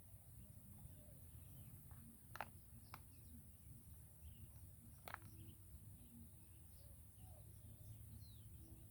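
Near silence by the water: faint scattered bird chirps and insect calls over a low rumble, with three sharp clicks, two close together about two and a half seconds in and one louder about five seconds in.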